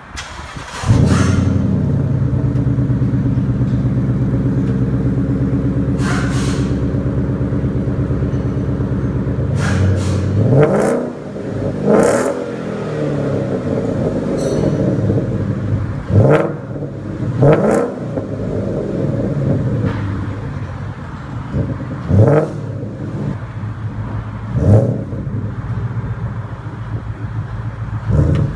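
2015 Mustang GT's 5.0 Coyote V8 cranking and firing about a second in, then holding a steady fast idle through a new Ford Racing X-pipe and Magnaflow Magnapack mufflers. From about ten seconds in it is blipped about seven times, each rev rising and dropping quickly back to idle.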